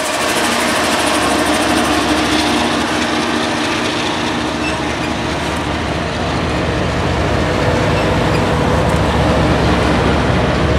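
A diesel freight locomotive passes close by with a steady engine hum. The hum fades after a few seconds as double-stack container well cars roll past, and their low wheel rumble on the rails grows stronger about halfway through.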